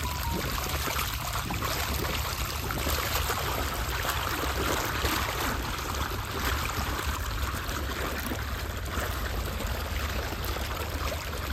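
Irrigation water gushing steadily out of the open end of a black plastic pipe and splashing into a muddy field channel, with a steady low hum underneath.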